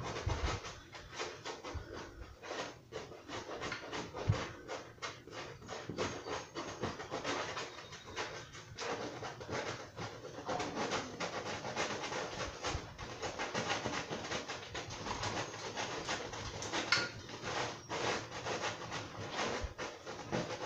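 Bristle brush scrubbing oil paint onto a canvas in a rapid, continuous run of short scratchy strokes, working light paint into the background to make a haze of mist.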